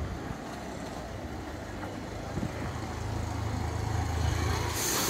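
Street traffic with a motorcycle approaching: its engine's low hum grows louder through the second half, and a rushing hiss rises near the end as it comes close.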